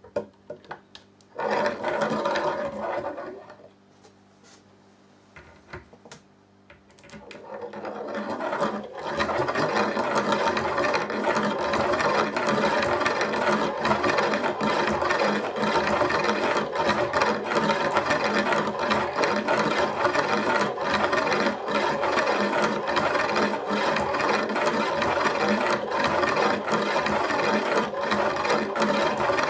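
Homopolar magnet motor's axle and disc-magnet wheels rolling round metal rails. The wheels rub and rattle on the rails with a continuous gritty whirr full of rapid ticks. The sound builds up from about seven seconds in and runs steadily from about nine seconds.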